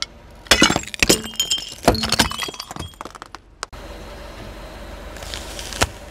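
Brittle objects cracking and breaking under a car tyre, a quick run of sharp cracks with clinking, glassy-ringing fragments. It stops abruptly, giving way to a steady low rumble with one more crack near the end.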